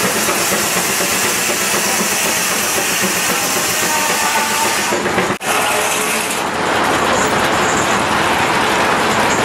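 Steam-powered circular sawmill running, a loud, dense, steady noise of machinery and hiss. The noise breaks off for an instant about five seconds in, then carries on.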